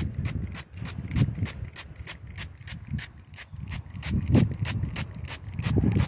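Hand trigger spray bottle squirting mist in quick repeated pumps, about four or five short hisses a second, with low rumbling handling noise underneath.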